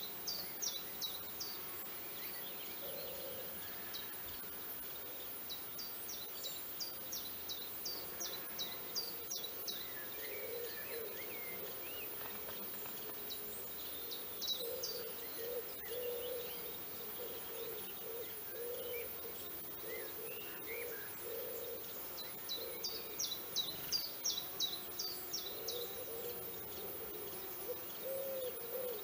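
Wild birds singing: runs of quick high chirps every few seconds, with a low call repeated in short pulses through the middle and again near the end.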